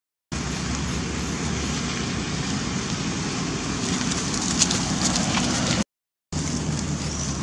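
Wind buffeting the microphone outdoors: a steady low rumble with a hiss above it, cut off twice by brief dropouts to silence, just after the start and about six seconds in.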